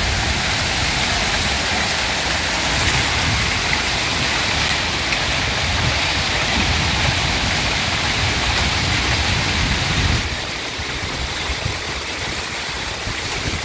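Heavy hail mixed with rain pelting down, a dense steady hiss with a deep rumble underneath. The rumble drops away and the downpour gets a little quieter about ten seconds in.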